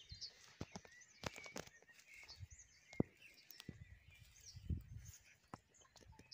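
Faint bird chirps over quiet outdoor ambience. Scattered sharp clicks and crackles and soft low thuds come from footsteps and handling on dry grass and flattened dead reed stems.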